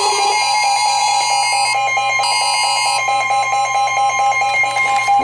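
Emergency Alert System attention signal: a loud, steady two-tone alert sounding before a tornado warning is read.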